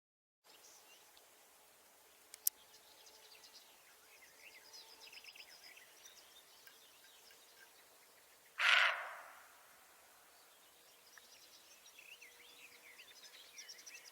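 Small birds chirping in the background, with one loud breathy burst about a second long, midway through, that fades off: a deer's alarm snort.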